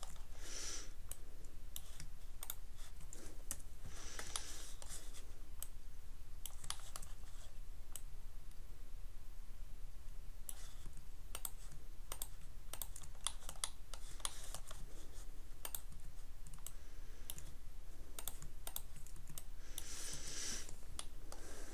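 Computer keyboard keys and mouse buttons clicking at irregular intervals, with quicker runs of keystrokes near the start, about four seconds in and near the end, over a steady low hum.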